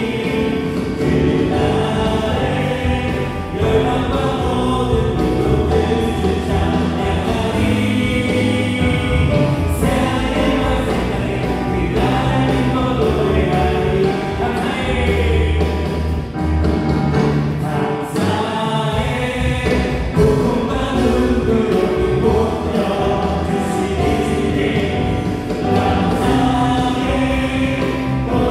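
Live church worship band playing a praise song with singing: electric guitar, bass guitar, keyboards and drums under voices singing.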